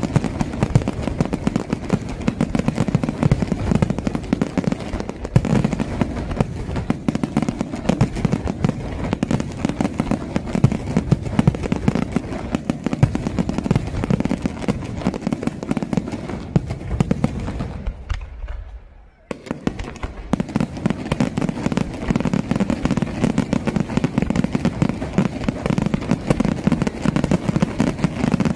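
Aerial firework shells bursting in a dense, continuous barrage of overlapping bangs and crackle. About two-thirds of the way through it fades out, drops to near silence for about a second, then starts again abruptly.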